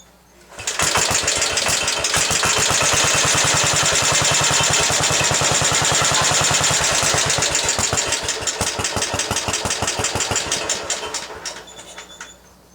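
Cast-iron 9 hp Briggs & Stratton 23CB single-cylinder engine starting from cold, catching at once and running fast with even firing strokes for about ten seconds, then slowing and winding down to a stop near the end.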